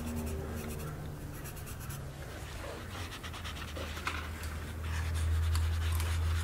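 Pencil scratching on paper in quick, repeated back-and-forth shading strokes, over a steady low hum that grows louder near the end.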